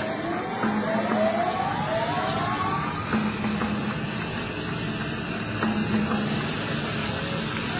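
Steady hissing noise with several rising whistle-like tones in the first three seconds and a low hum that comes and goes.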